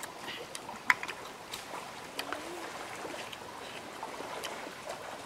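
Eating cooked snails: scattered small clicks and taps as snail shells and a picking stick are handled, with chewing mouth sounds, and one sharp click about a second in.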